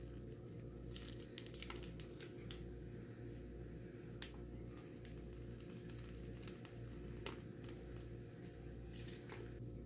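Scattered light crinkling and clicking of something being handled, over a steady low hum.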